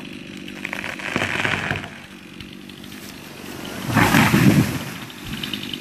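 An oak tree falling while a Stihl MS 291 chainsaw idles steadily. Wood cracks and branches rush about a second in, and the trunk crashes to the ground about four seconds in, the loudest sound here.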